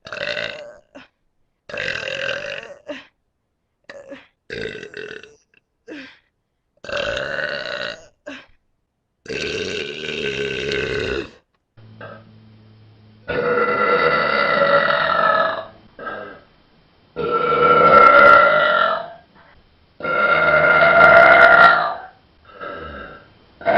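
A person burping over and over: short burps at first, then longer drawn-out burps of about two seconds each, the loudest near the end.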